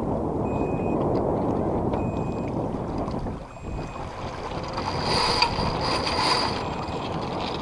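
Wind buffeting the microphone over the rush of water along a sailing yacht's hull as she sails upwind, with a brighter hiss of water about five seconds in.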